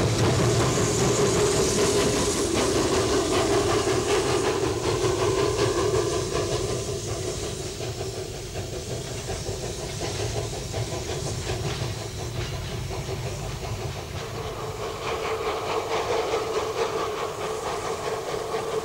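Narrow-gauge steam locomotive hissing steam as it works a train, with the wagons rolling by and clicking over the rails. The sound fades somewhat midway and grows louder again near the end.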